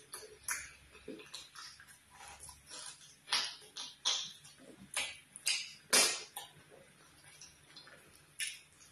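Close-miked wet mouth sounds of eating fufu with vegetable soup by hand: sticky smacking and chewing in irregular bursts, the loudest about six seconds in.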